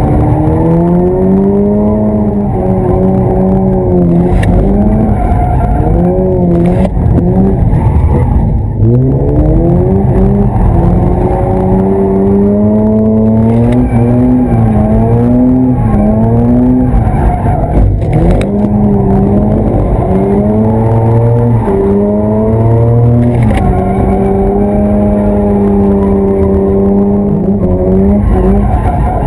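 Mazda RX-8's twin-rotor Renesis rotary engine revving hard, its pitch rising and falling again and again as the car is thrown through donuts and drifts, heard from inside the cabin.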